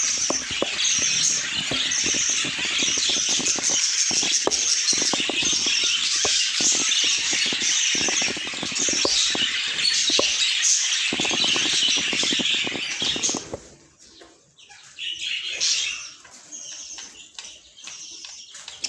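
A flock of budgerigars chattering and warbling together, with wing flapping mixed in. About two-thirds of the way through the noise drops off suddenly, leaving fainter scattered chirps.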